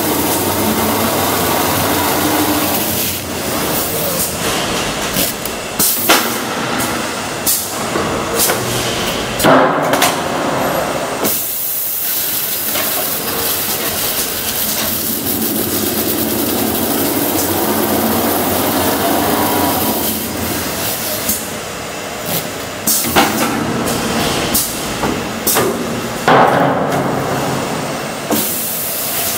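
Automatic stretch film rewinder and slitter running at speed: a loud, steady whir of spinning rollers and film, broken by sharp clicks and knocks now and then.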